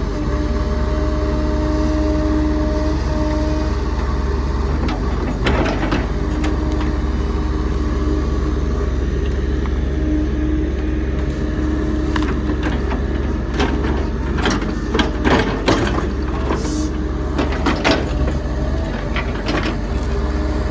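Heavy land-clearing machine's diesel engine running steadily, with a hydraulic whine that comes and goes. Several sharp metal clanks and knocks come near the middle and through the second half.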